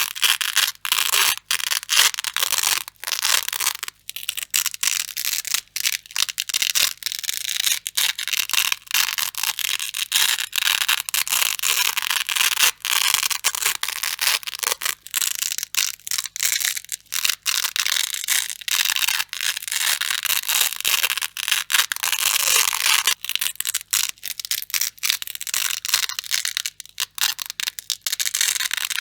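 Grey hook-and-loop (Velcro) strips being pulled apart over and over, a dense crunchy crackle in quick repeated tears with short gaps between them.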